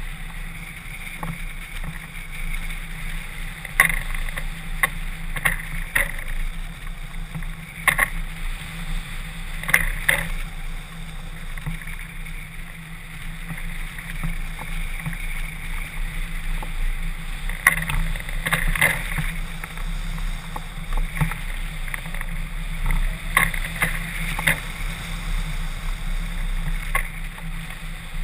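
Airflow rushing over a hang glider in flight, heard as steady wind noise on a camera mounted to the glider, with brief sharp pops every few seconds.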